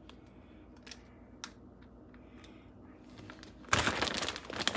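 A few faint clicks, then, about three and a half seconds in, a plastic bag of shredded cheese rustling and crinkling for about a second as a hand reaches into it.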